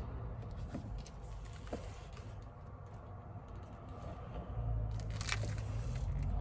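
Faint handling noises: a few light clicks and soft rustling as a belt and its plastic packaging are handled, over a low room hum.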